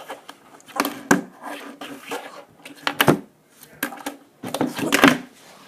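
Tech Deck fingerboard clacking and landing on a hard surface during trick attempts: a few sharp knocks, one about a second in, one about three seconds in and several close together near the end.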